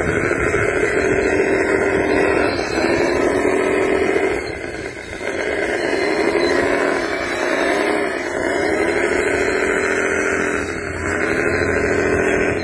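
Radio-controlled wheel loader's drive motor whining as it crawls over loose dirt, the pitch rising and falling with the throttle. It eases off briefly about five seconds in and again near the end.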